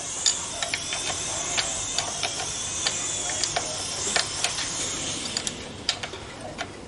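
Ratchet wrench clicking in short, irregular runs as a bolt on the motorcycle's front wheel is done up.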